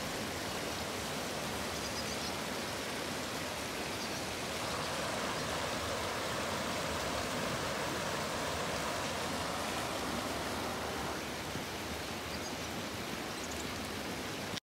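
Spring water flowing and trickling into a pond: a steady, even rush of running water.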